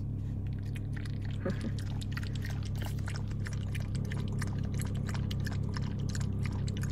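A Maltese dog lapping water from a small plastic cup: a run of quick, irregular wet tongue clicks over a steady low hum inside the car.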